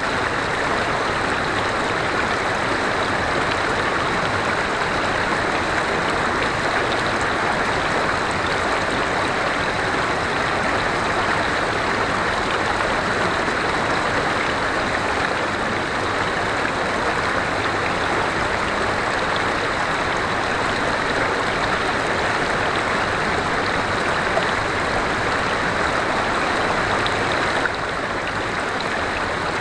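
River water flowing and rushing steadily, an even continuous wash with a faint high steady tone above it. It drops a little in level near the end.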